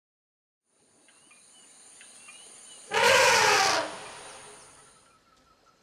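A forest elephant gives one loud trumpet, just under a second long, about three seconds in, which then dies away over about a second. Under it, a steady high insect drone and a few bird chirps.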